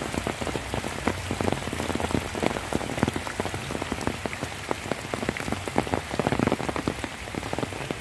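Heavy rain falling steadily: a dense hiss of the downpour with many separate close drop hits.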